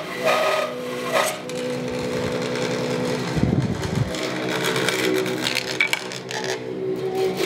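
Bandsaw with a 4 TPI blade running, the whine of it ripping sapele stock ending about a second in, after which the machine keeps running unloaded. A low thump about three and a half seconds in, then light knocks of wood pieces being handled on the saw table.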